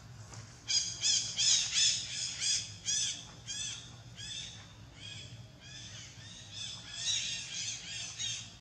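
Infant long-tailed macaque crying: a rapid run of high-pitched, arching squeals, about two or three a second, loudest at the start and again near the end.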